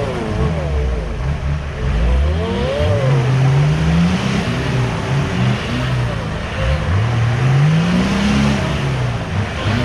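Off-road 4x4 engines revving hard under load in deep mud, the pitch climbing and dropping back three or four times over a steady rush of engine noise, as a stuck 4x4 is pulled out on a tow strap.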